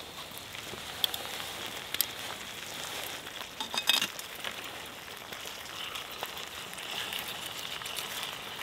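Bacon and sausage frying in vegetable oil in a camping frying pan: a steady sizzle with scattered crackles and a few sharper pops, about one, two and four seconds in.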